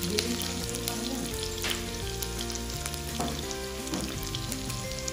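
Chopped garlic and onion sizzling in hot oil in a nonstick pot, with a wooden spatula stirring and scraping the pan a few times. Background music plays underneath.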